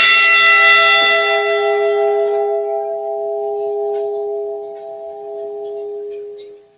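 The Edmund Fitzgerald's bronze ship's bell struck once and left to ring out, its high tones dying away first and the lower hum fading over about six seconds. It is a single memorial toll for one lost crew member whose name has just been read.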